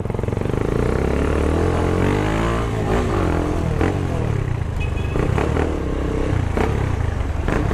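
Motorcycle engine pulling away and running in traffic, heard from the rider's own bike, with a rise and fall in engine pitch about two to three seconds in. Wind rushes over the microphone throughout, and a few short knocks sound later on.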